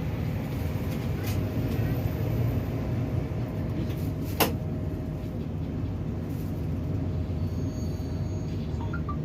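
Steady low rumble of a moving vehicle heard from inside, with a faint steady hum and one sharp click about four and a half seconds in.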